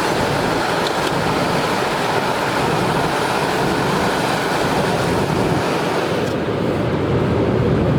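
Steady rush of road and wind noise from a moving car. The high hiss drops away about six seconds in while the lower rumble goes on.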